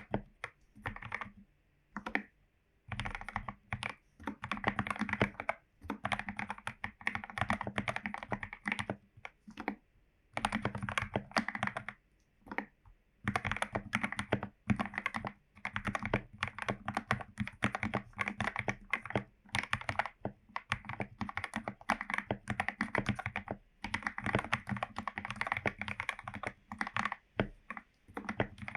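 Typing on a Royal Kludge RK84 mechanical keyboard fitted with lubed Gateron Yellow linear switches: fast runs of keystrokes broken by a few short pauses.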